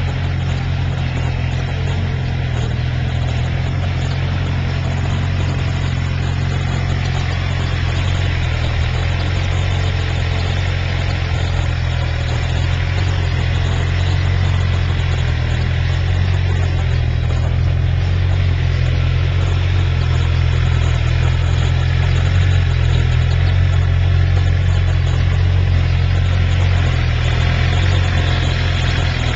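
Suzuki GSX-R sportbike's inline-four engine idling steadily, a little louder near the end as it is heard close to the engine and exhaust.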